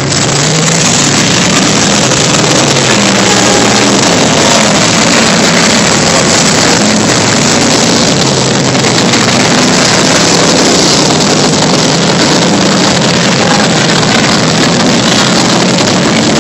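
Several race car engines running together as the field circles the track. Their overlapping engine notes shift in pitch, over a loud, steady wash of engine noise.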